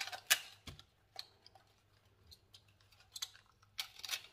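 A kitchen knife cutting through crisp puntarelle (Italian chicory) stalks held in the hand, giving a few sharp, scattered snaps and clicks, the loudest just after the start.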